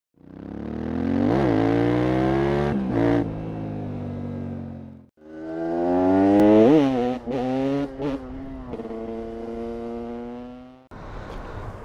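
Two-stroke motorcycle engine revving and accelerating in two separate passages, each fading in and out. The pitch climbs with a sharp blip in each, with brief dips in between, and the second passage settles to a steadier note toward its end.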